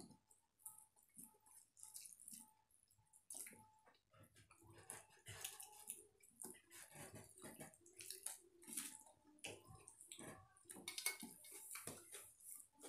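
Faint wet squelching, smacking and small irregular clicks of fingers mixing watery panta bhat rice on steel plates, with eating sounds.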